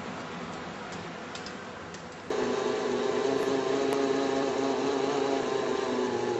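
Mirage MM500i portable flange facing machine running with a steady mechanical hum. A little over two seconds in, the sound abruptly gets louder and a stronger steady tone appears.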